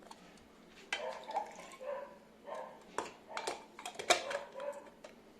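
A dog vocalising in about six short pitched bursts, mixed with sharp clicks, the loudest about four seconds in.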